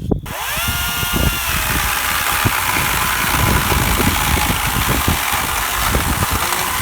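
WEN 40V cordless electric chainsaw spinning up with a rising whine about half a second in, then running steadily with a loud rushing buzz.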